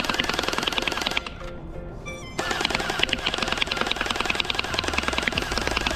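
Rapid automatic fire with music behind it. The firing breaks off about a second in and starts again about a second later.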